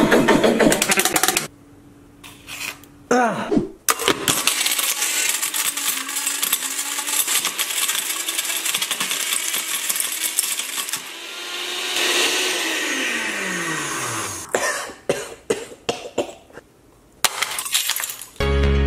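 Countertop blender with a glass jar grinding up a smartphone: a loud, steady grinding noise for about nine seconds, then the motor winds down with a falling hum. Scattered sharp knocks come before and after, and music starts at the very end.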